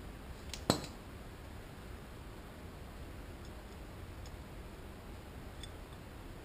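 One sharp click just under a second in, with a lighter one just before it and a few faint ticks later, as small parts are handled on the camshaft end of a motorcycle cylinder head. Steady low hiss underneath.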